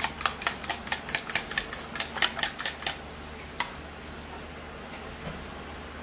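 A utensil clinking rapidly and evenly against cookware, about five strikes a second, as egg is beaten or stirred in for egg drop soup. The clinking stops about halfway, then one sharp clink.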